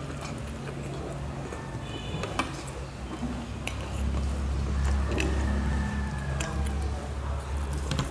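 A few sharp clicks and a brief clink of cutlery against a plate during a meal, over a low steady hum.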